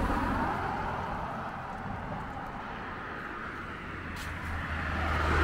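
Road traffic: tyre and engine noise of a passing car fading away, then another vehicle approaching and growing louder near the end.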